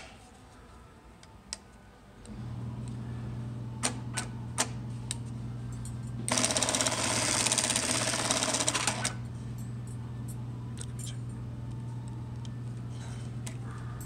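Juki LK1900B bar-tacking sewing machine stitching a box pattern through a leather belt tab: a steady hum comes on about two seconds in, a few sharp clicks follow, then about three seconds of rapid, loud stitching rattle from about six seconds in before it stops and the hum carries on.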